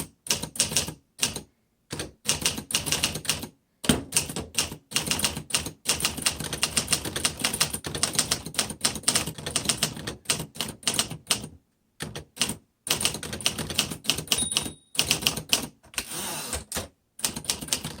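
Typing on a 1951 Remington Quiet Riter manual typewriter: quick runs of key strikes, several a second, broken by short pauses.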